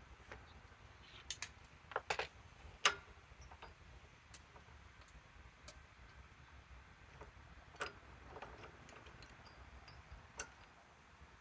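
Scattered light clicks and knocks, a few seconds apart, over a low steady hiss; the sharpest knock comes about three seconds in.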